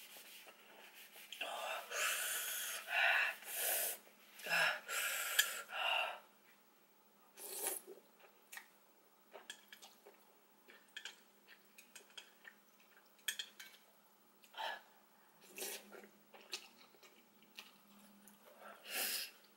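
A woman breathing hard in and out through her mouth, a string of loud, hissing breaths over the first few seconds, from the burn of very spicy noodles. Then quieter eating sounds, chewing with scattered small clicks, and another loud breath near the end.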